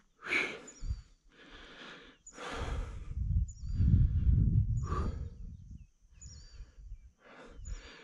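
A hiker breathing hard after a steep uphill climb, in heavy breaths about a second long with short gaps, the louder ones buffeting the microphone. A bird repeats a short high call with a falling tail about every second and a half.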